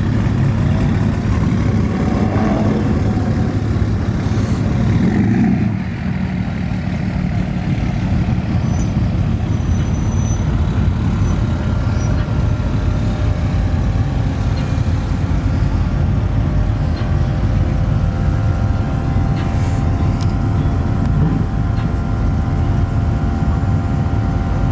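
Pickup truck engine running steadily and loudly close by, with a brief drop in level about six seconds in; faint steady tones come in about halfway through.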